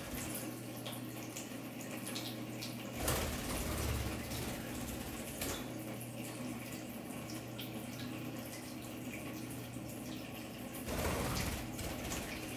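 Running water, a steady rush with faint ticks over it, swelling briefly about three seconds in and again near the end.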